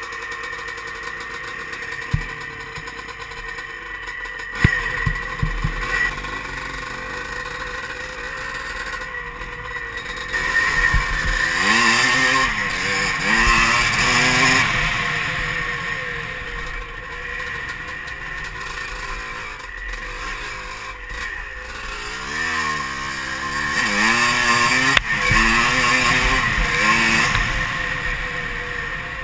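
Dirt bike engine heard from the bike itself, revving up and down as it is ridden. The revs sweep up and fall back repeatedly about a third of the way in and again near the end, with a few sharp knocks from the bike jolting.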